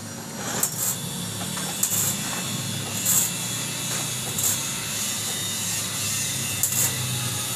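Arc welding: several short bursts of arc hiss about a second apart as tack welds fix a mounting bracket onto a motorcycle exhaust muffler, over a steady low hum from the welding machine.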